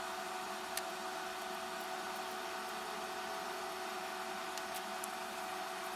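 Steady background hiss with a faint even hum, and a small click a little under a second in and a couple of faint ticks near the end.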